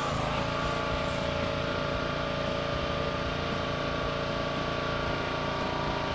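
Gas-engine pressure washer running steadily. Right at the start the water jet hisses against the boat's fibreglass hull, and the engine note dips slightly as the spray begins.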